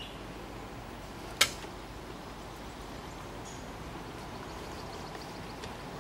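Steady outdoor background hiss with one sharp click about a second and a half in, and a faint high chirp around the middle.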